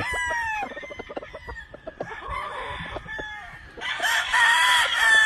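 Game-fowl roosters crowing: one crow trails off just after the start, and another long crow begins about four seconds in, with short clicks between.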